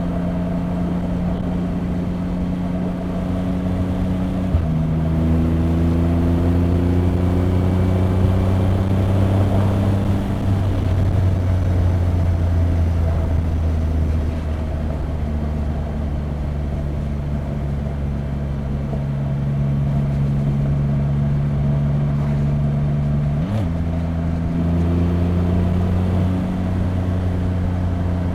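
Triumph Rocket 3 R Storm's 2.5-litre inline three-cylinder engine pulling under way: its pitch rises, then drops sharply at two gear changes about 4 and 10 seconds in. The pitch then sinks slowly as the bike slows, and near the end a downshift brings a quick blip and a higher steady note.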